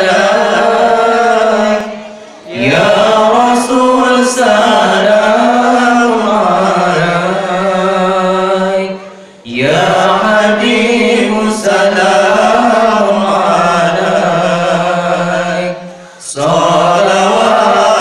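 A man's solo voice chanting an Islamic devotional song through a microphone, in long wavering phrases around one pitch, with a short breath about every seven seconds.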